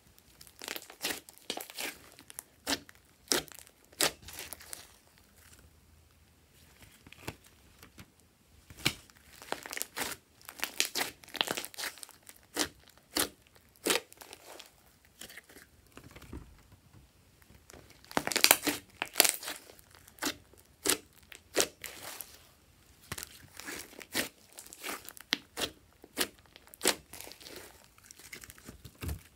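Glossy slime being squeezed, folded and stretched by hand, giving irregular sticky pops and crackles, some single and some in quick clusters, with brief pauses between handfuls.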